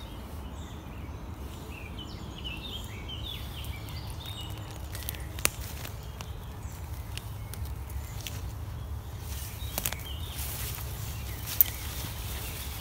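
Wind on the microphone with a short gust rushing through the leaves about ten seconds in. A bird chirps several times in the first few seconds, and there are two sharp clicks.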